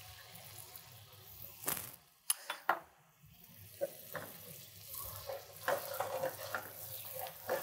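White wine poured into a hot frying pan of pan fat and sauce on a gas burner, sizzling lightly, with several sharp clinks of a metal utensil against the pan.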